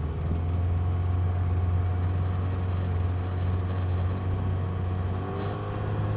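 Tiller-steered outboard motor on a small aluminium dinghy running steadily under way, a constant low hum; it picks up slightly just after the start.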